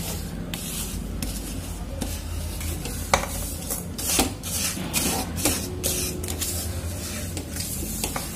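A spatula (khunti) stirring and scraping a mixture of milk powder, ghee and sugar around a pan, in quick irregular strokes, over a steady low hum.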